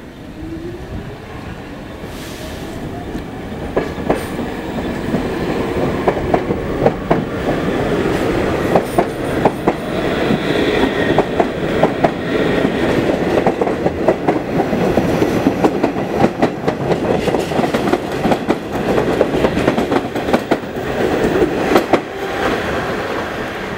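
Pullman Standard R46 subway train running past, its motors whining and rising in pitch as it gathers speed over the first few seconds. Its wheels then clack rapidly and unevenly over the rail joints, louder as the cars go by.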